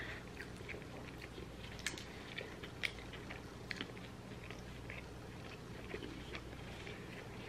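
Two people biting into and chewing burgers close to the microphone: soft, scattered wet mouth clicks, a few a little louder than the rest.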